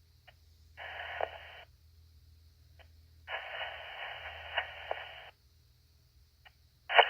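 Fire-department radio channel keyed up twice with no voice: two short bursts of static hiss from an open carrier, the second about two seconds long, with faint squelch clicks before and after.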